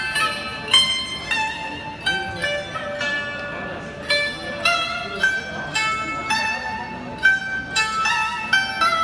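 Đàn tranh (Vietnamese zither) played solo: a melody of single plucked notes, each ringing and fading, with some notes bent or wavering in pitch.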